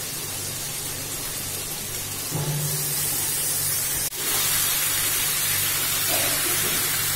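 Raw chicken pieces sizzling in hot oil and spice paste in a kadai, a steady hiss that grows louder a little past two seconds in, with a short break about four seconds in. A low steady hum runs underneath.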